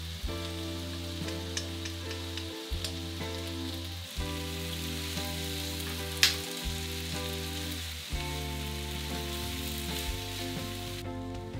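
Bean sprout and garlic chive stir-fry with egg sizzling in a frying pan over gas, tossed with chopsticks that clack against the pan, one sharp clack about six seconds in. Soft background music with sustained notes runs underneath, and the sizzling cuts off near the end.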